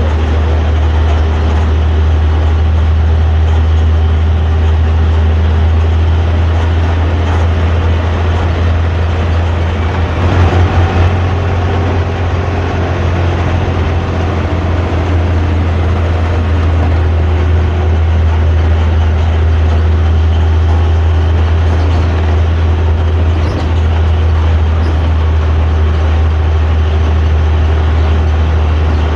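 Exhaust of a Hino AK3-HR bus's diesel engine under way, heard from the rear seats as a steady deep growl, the characteristic "ngorok" (snoring) drone. It grows briefly louder and rougher about ten seconds in.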